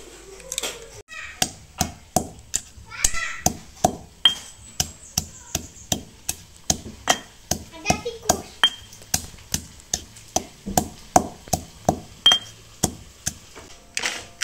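Granite pestle pounding dried, crumbly pieces in a granite mortar: a steady run of stone-on-stone knocks, about two a second, stopping near the end.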